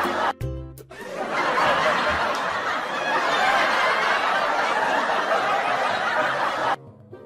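Audience laughter, a many-voiced laugh track, with short breaks about half a second in and near the end.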